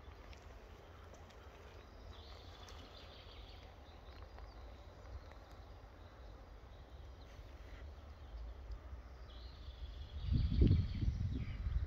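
Outdoor forest ambience: a steady low wind rumble on the microphone, with faint high bird calls twice. About ten seconds in, a louder low rumble in several pulses.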